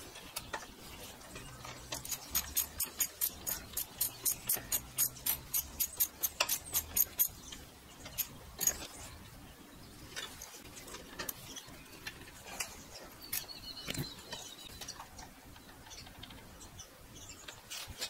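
Ratchet wrench clicking quickly and evenly, about four clicks a second for some five seconds, while the rear brake pedal pivot bolt is tightened against an Allen key. After that come scattered light metal clicks and taps of the tools, with a sharper tap about two thirds of the way in.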